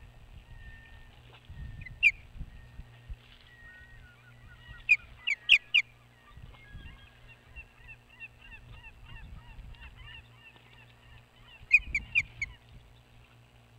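Ospreys calling at the nest: a steady run of short, high whistled chirps, broken by loud sharp calls, once about two seconds in, four in quick succession around five seconds in, and three more near the end.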